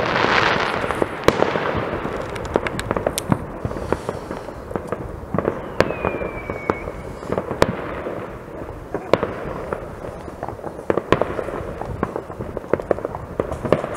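Many fireworks going off across a town at once: a continuous rumble of distant bangs with sharper, nearer reports scattered throughout. There is a crackling spread in the first second, and a brief, slightly falling whistle about six seconds in.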